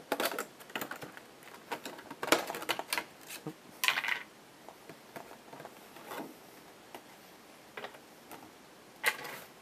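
A puzzle's packaging being opened by hand: scattered clicks and taps with a few short rustling bursts, the loudest near 4 s and again just before the end.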